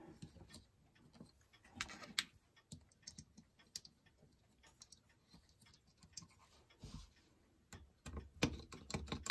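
Light clicks and taps of fingers handling the small metal housing and case back of an electric clock movement, scattered and faint, with a busier run of clicks and knocks near the end.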